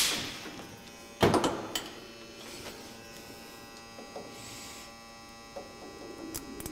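A short, loud burst of noise about a second in, then a steady electrical hum. Near the end come light clicks as a micrometer is closed on a part held in a metal lathe.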